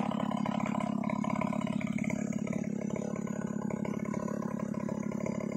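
Large two-stroke chainsaw, an assembled Stihl 070-type saw, idling steadily and not cutting.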